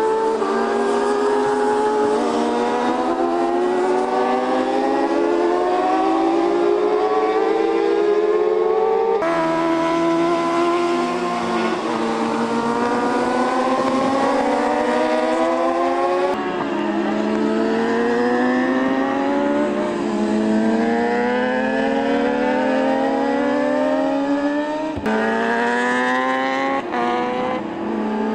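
Several racing motorcycle engines at high revs, accelerating through the gears over and over. Their pitch climbs and drops back with each shift, and several bikes overlap. The sound changes abruptly three times, at edits in the footage.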